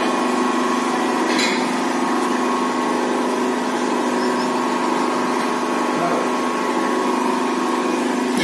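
Hydraulic power pack of a brick-making machine, its electric motor and pump running with a steady hum and whine. A brief click comes about a second and a half in.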